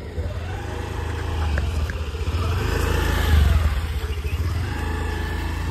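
Honda Activa scooter's engine running as it is ridden, its pitch rising and falling, loudest about three seconds in, over a steady low rumble.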